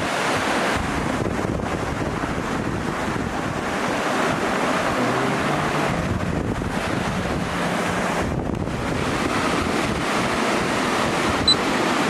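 Steady rush of a stream pouring over boulders below a waterfall. Near the end there is a short, high electronic beep.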